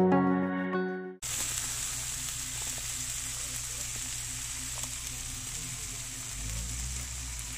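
Soy and oyster sauce with pork siomai and odong noodles simmering and sizzling in a wok, a steady hiss. Background music plays for about the first second, then cuts off.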